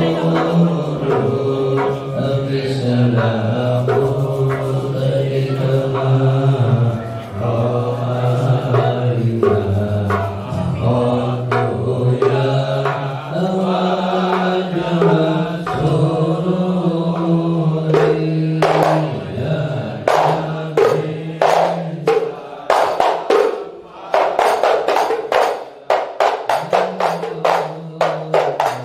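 Men's voices chanting sholawat together in slow, drawn-out unison, in the Madurese ishari style. From about two-thirds of the way in, sharp hand strokes on terbang frame drums join in. Near the end they quicken into a dense, fast rhythm.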